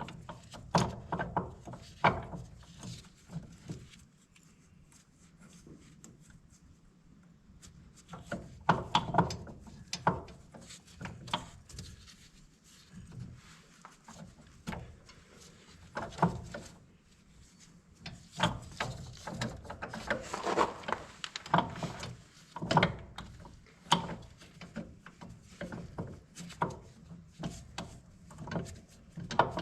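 Irregular clinks, knocks and scraping of hand tools on metal planter parts during hands-on repair work, with a quieter stretch of a few seconds near the start.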